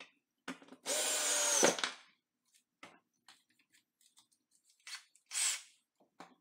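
Cordless drill driving exterior screws into a plywood floor panel: one run of about a second, its pitch dipping just before it stops, then a shorter burst a few seconds later.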